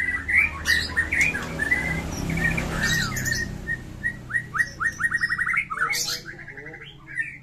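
White-rumped shama (murai batu) singing a fast, varied song of chirps, whistles and slurred notes, with a rapid run of repeated notes about four seconds in.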